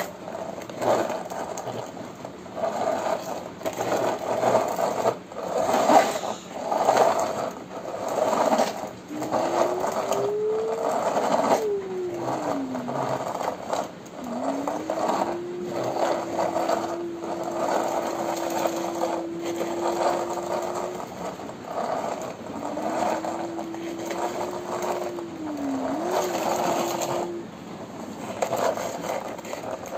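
Plastic toy police jeep pushed back and forth by hand on a hard floor, its wheels and works rattling and scraping in repeated bursts about once a second. A thin whine comes in partway through, rising and falling in pitch, then holding steady for several seconds.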